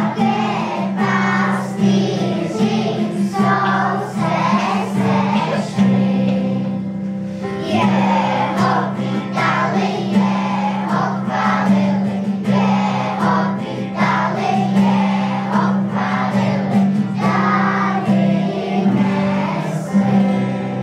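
Children's school choir singing together over a steady low held note, with a short break in the singing about six seconds in.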